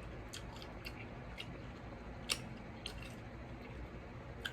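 Close-miked mukbang chewing: a handful of faint, wet mouth clicks and smacks, the sharpest a little past halfway.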